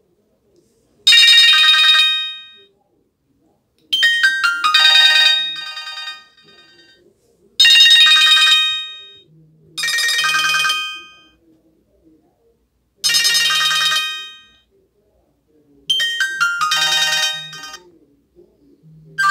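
Nokia 100 mobile phone playing its built-in tones through its small speaker, one short snippet after another. There are about seven snippets, each a quick run of bright electronic beeping notes lasting one to two seconds, with short gaps between them.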